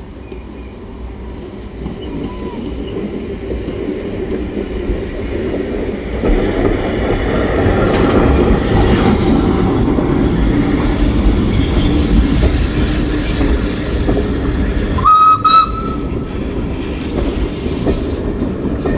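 Steam saddle-tank locomotive working a passenger train, growing louder as it comes near and passes close, with the running noise of the coaches. A short, sharp whistle blast sounds about 15 seconds in.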